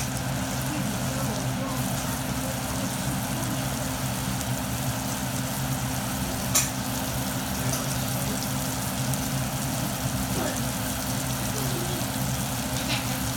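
Food frying in a pan, a steady sizzle over a constant low hum, with one sharp click about six and a half seconds in.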